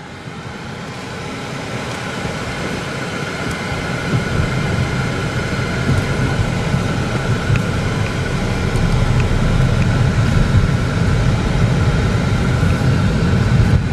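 Cabin noise of a 2011 Chevy Cruze on the move: road and tyre noise with its turbocharged Ecotec four-cylinder engine running. It grows steadily louder throughout.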